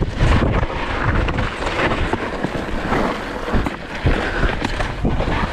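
Polygon Xquareone DH9 downhill mountain bike ridden fast over a dirt trail: wind rushing over the camera microphone with a continuous clatter of knocks and rattles as the bike and tyres hit the rough ground.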